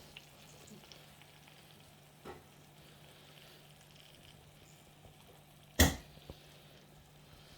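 Faint sizzling from the frying pan, with a sharp clack of kitchen tongs about six seconds in and a couple of lighter taps.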